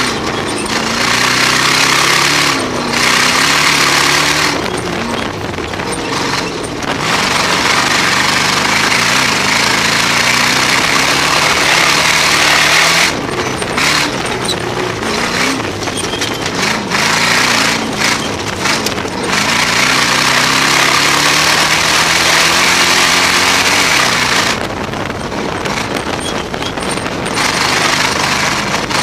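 Rock-racing car's engine revving up and down again and again as it is driven hard over rough desert terrain, heard from inside the open cockpit under a loud rushing noise that eases off for a few seconds several times.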